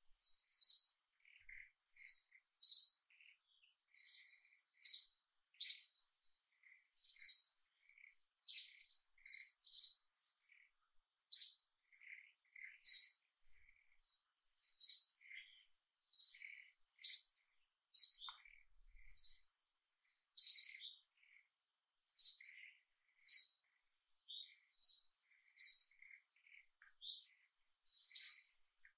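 Small birds chirping: short, sharp, high notes repeating about once or twice a second, with fainter lower chirps in between.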